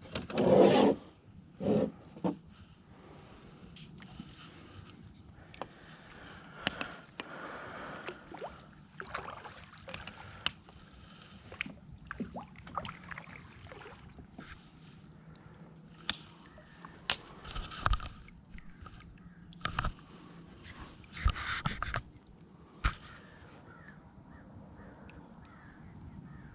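Scattered knocks, clicks and scrapes of gear being handled in a kayak, with a few short loud sounds in the first two seconds.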